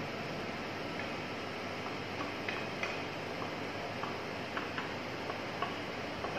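Light, scattered clicks and taps of a spatula against a frying pan as an omelette is slid out onto a plate, over a steady background hiss.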